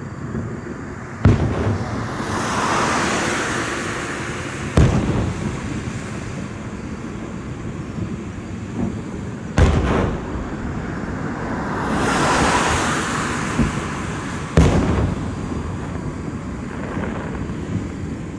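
Aerial fireworks bursting: four sharp booms, roughly every four to five seconds, with a hissing crackle of sparks spreading out after some of the bursts.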